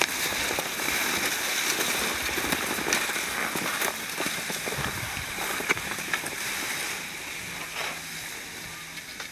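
Skis sliding and scraping over snow on a downhill run, with wind rushing over the microphone: a steady hiss that eases off after about seven seconds, with a few faint clicks.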